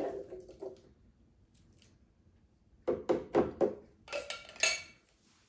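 A tin can knocking and clinking against a glass bowl as canned chickpeas are shaken out of it. It comes as a quick run of about eight knocks starting about three seconds in.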